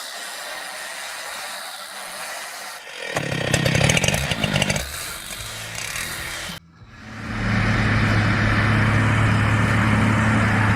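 Engine-driven machinery running, louder for a couple of seconds in the middle. About six and a half seconds in it cuts off abruptly, and a steady, deep engine drone takes over.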